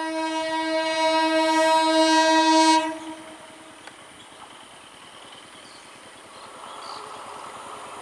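Indian EMU local train's horn sounding one long, steady blast of about three seconds that cuts off sharply. Afterwards a quieter train rumble builds up again near the end.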